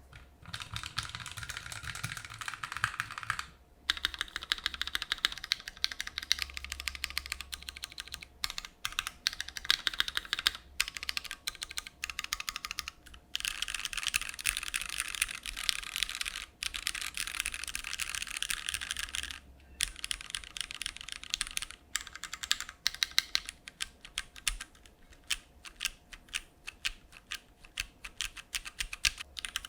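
Fast continuous typing on a Keychron Q1 mechanical keyboard with Gateron Phantom Brown tactile switches and CRP Crylic Red keycaps on a stock aluminium plate, a rapid run of key clacks broken by brief pauses, with the strokes thinning out near the end.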